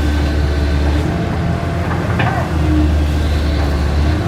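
Cat 320C excavator's diesel engine running under load, its low drone swelling and easing twice as the hydraulics work, with a brief higher sound about two seconds in.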